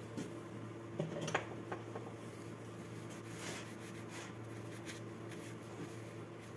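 Steady low hum with a few small clicks about a second in and a brief soft rustle midway: handling noises as a freshly glued windshield is pressed into place by hand.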